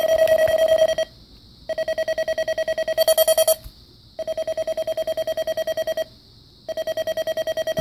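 Eton Zoneguard Plus weather radio sounding its alert siren on test: a single loud beeping tone, pulsed about ten times a second, in bursts of about two seconds with short gaps between them.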